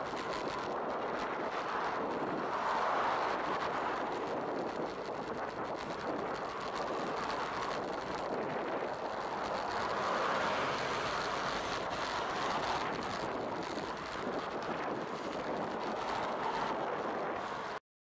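Wind rushing over a cyclist's camera microphone, mixed with road traffic noise, with a louder swell about ten seconds in as a bus passes close alongside. The sound cuts off abruptly to silence near the end.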